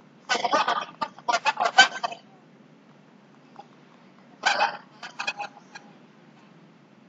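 Chicken clucking in two bursts of rapid clucks, heard over a video call's audio: one about two seconds long near the start, and a shorter one about four and a half seconds in.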